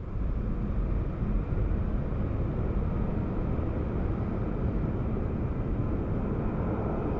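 Alaska Airlines Boeing 737-800's CFM56 jet engines at takeoff thrust on the departure from runway 27: a steady, low-heavy jet noise that comes up sharply at the start and holds.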